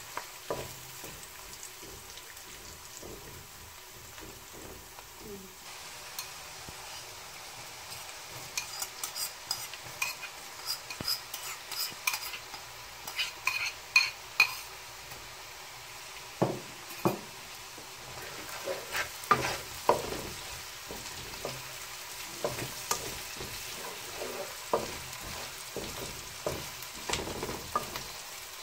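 Oil sizzling in a wok as onion, garlic and dried prawns fry, with a wooden spatula scraping and knocking across the pan. In the middle comes a quick run of sharp clinks as chilli is spooned from a bowl into the wok, then the spatula strokes resume.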